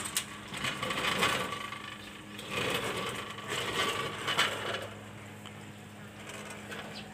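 Aluminium-framed screen door rattling and scraping as it is handled, in irregular bursts with a few sharp clicks up to about five seconds in, then quieter.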